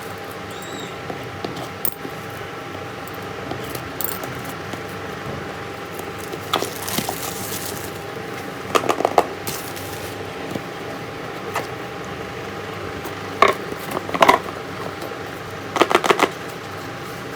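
Hands handling a smartphone's retail box and packaging: scattered light clicks and taps, with short clusters of clicking and a brief rustle of packaging about seven seconds in, over a steady faint hum.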